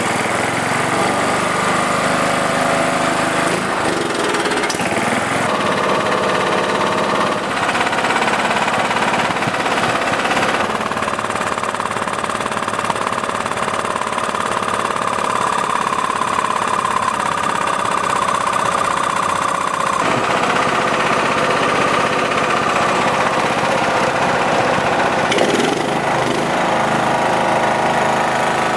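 Kawasaki FC420V single-cylinder engine running on its freshly cleaned carburetor, its speed stepping up and down several times as the idle speed screw is turned.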